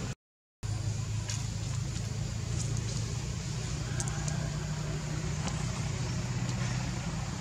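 A steady low mechanical hum with a few faint high ticks. The sound drops out completely for about half a second just after the start.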